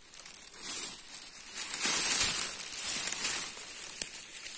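Rustling and crinkling of dry leaves and forest undergrowth, building about half a second in and heaviest in the middle.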